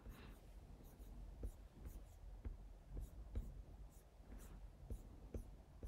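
Faint, irregular clicks and taps of a computer keyboard and mouse.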